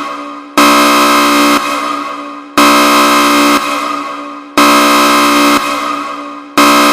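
Emergency alert alarm tone: a harsh, steady horn-like blast repeating every two seconds, each blast about a second long, then dropping into a fading echo before the next starts.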